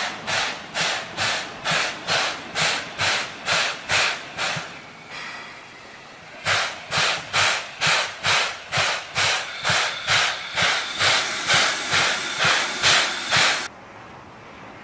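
JNR Class C11 steam tank locomotive C11 190 working hard, its exhaust chuffing in an even beat of about two and a half a second. The beats break off for a moment of fainter hiss about five seconds in, resume, and cut off abruptly near the end.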